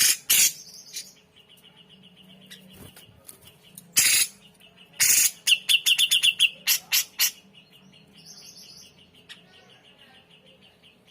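Cucak jenggot (grey-cheeked bulbul) calling: several loud, harsh calls. Around the middle comes a rapid trill of about eight clear notes, over a fainter pulsed chirping that goes on throughout.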